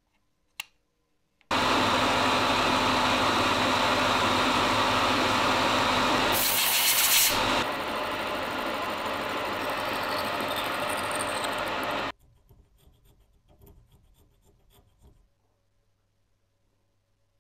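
Workshop machining noise: a steady rasping, rubbing sound of a tool working on a part for about ten seconds, starting and stopping abruptly, with a brighter hiss about six seconds in. A few faint knocks follow.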